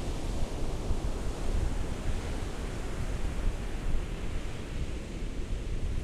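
Ocean surf: waves washing in a steady, unbroken wash of noise with a deep low rumble.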